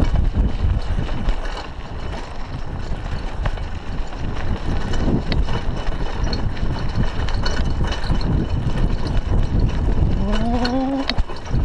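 Mountain bike riding on a sandy dirt road, heard from a chest-mounted camera: wind buffeting the microphone over tyre noise on the loose surface, with scattered small clicks and rattles from the bike. About ten seconds in, a short rising call with a clear pitch, about a second long.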